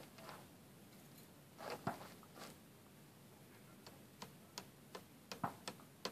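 A few scattered light knocks, then from about four seconds in a run of sharp, evenly spaced ticks, about three a second.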